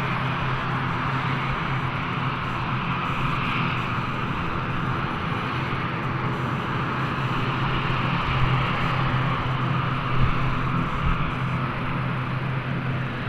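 ATR 42-500 twin turboprop with Pratt & Whitney PW127 engines running steadily: a constant low propeller hum under an even engine hiss that neither rises nor falls.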